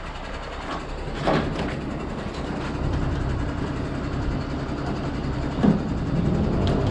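Tow truck's engine running steadily as its crane boom lifts an overturned power tiller on a strap, with a couple of knocks from the hanging machine, one about a second in and one near the end.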